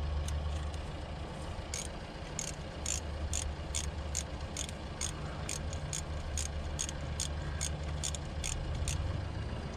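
Ratchet wrench clicking about three times a second as it tightens the VTEC solenoid bolts on a Honda D15 engine, over a steady low hum.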